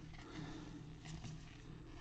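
Faint rustling and soft clicks of a stack of trading cards being slid and flipped through by gloved hands, over a low steady hum.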